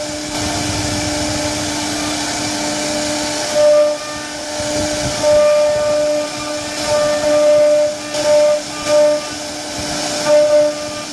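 CNC router spindle whining steadily while its bit carves a relief pattern into a wooden board, over a hiss of cutting. The sound swells several times as the bit works through the cut.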